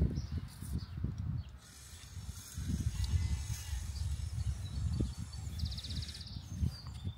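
Metal-on-metal handling of a telescopic antenna whip being fitted and screwed into the Slidewinder's spike-mounted base coil, with uneven rattling and scraping and a quick run of rapid ticks near the end.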